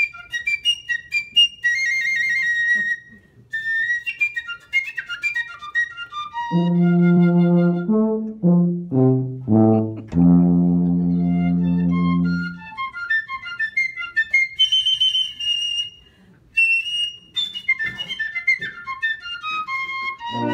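A piccolo plays quick, high runs. Then a tuba answers with a slower low phrase of a few stepping notes, ending on a long held note. The piccolo comes back with more fast runs, pausing briefly near the middle of them.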